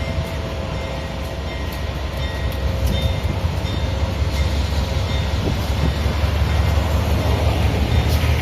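Diesel-electric freight train running by with a steady, heavy low rumble, a few faint steady whining tones above it, growing louder through the stretch.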